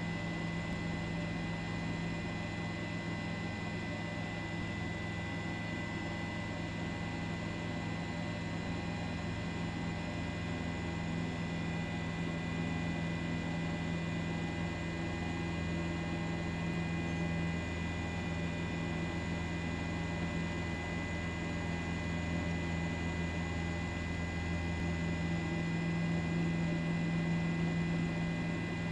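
A steady, unbroken hum with several thin steady tones above it.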